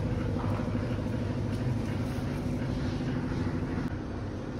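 A steady machine hum with a fixed pitch over a low rumble, easing off a little about four seconds in.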